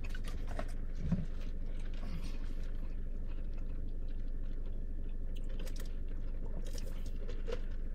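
A man's soft mouth sounds: chewing and sipping a drink through a straw, with small clicks here and there, a little louder about a second in. A steady low hum runs underneath inside the car cabin.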